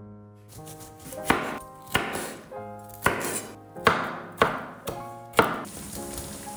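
Chef's knife chopping a red bell pepper on a bamboo cutting board: about seven sharp, irregularly spaced strikes.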